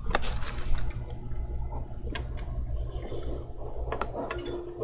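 Small tools clicking and tapping at an electronics repair bench over a steady low hum, with a short hiss right at the start.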